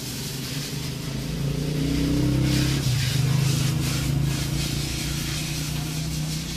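Car engine running, heard from inside the cabin: a steady low hum that grows louder about a second and a half in, holds through the middle, then eases off slightly.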